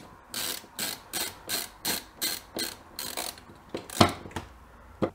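Hand screwdriver ratcheting back and forth in short strokes, about three a second, driving a small screw into a wire terminal block. A few sharper clicks follow near the end, the loudest about four seconds in.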